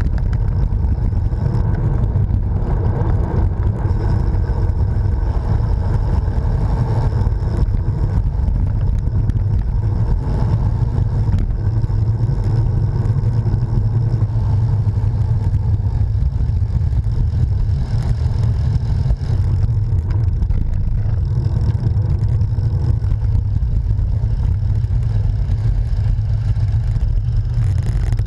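Steady low rumble of wind buffeting the camera microphone, mixed with tyre and road noise from a bicycle riding along a rough tarmac lane.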